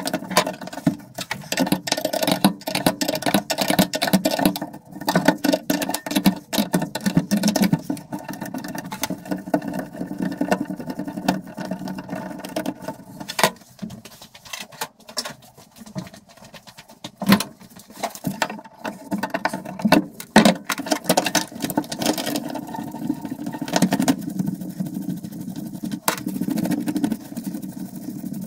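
Clicks, knocks and rattles of hand tools on metal as a Classic Mini's handbrake cable is disconnected and pulled free, over a steady low hum.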